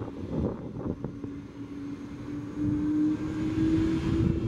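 Airbus Beluga's turbofan jet engines running at low thrust while taxiing: a steady whine over a rumble. The whine climbs slightly in pitch and gets louder a little over halfway through.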